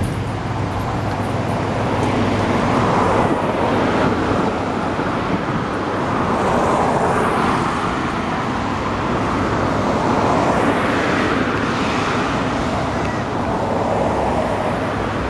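Road traffic: a steady rush of passing cars, rising and falling as vehicles go by about every three to four seconds.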